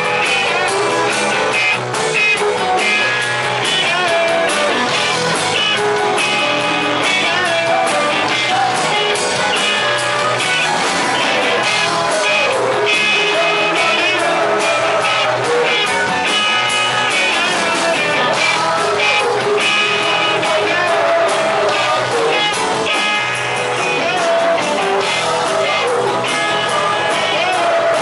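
Rock music: a band with electric guitars and drums playing, with a singing voice over it.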